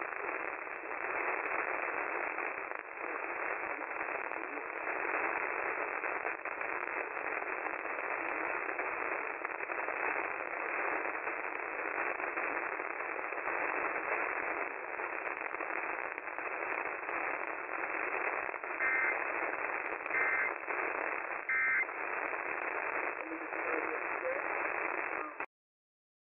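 AM radio reception, thin and narrow-sounding, buried in steady static and hiss with a faint voice under it. Near the end three short two-tone data bursts, an Emergency Alert System header, come through the static, and then the sound cuts off abruptly.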